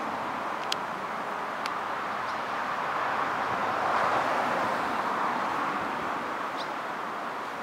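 Steady rush of a flowing river, with a few short high chirps over it.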